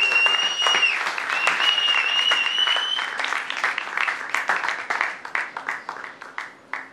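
An audience applauding, with a high, held whistling tone over the clapping for the first three seconds. The clapping then thins out and dies away near the end.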